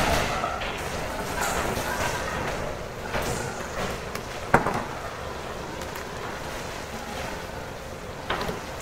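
A large knife chopping down through a whole chicken onto a plastic cutting board: one sharp chop about four and a half seconds in, and a lighter knock near the end, over steady background noise.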